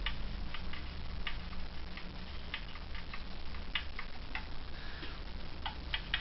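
Light, irregular clicks and taps of a tiny screwdriver against small plastic toy parts while a stopper is pressed into a wheel brace, over a low steady hum.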